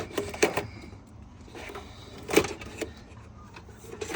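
Old hood release cable being pulled through the firewall, with a few short scrapes and knocks as it drags; the loudest comes about two and a half seconds in.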